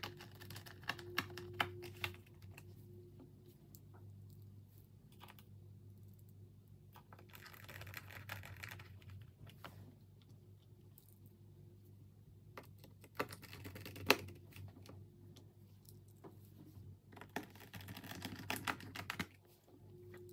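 Small screws being driven back into a Lenovo Legion Y700 laptop's plastic bottom cover with a screwdriver. The sound is faint clicking and scraping that comes in four or five short bouts, with quieter pauses between them.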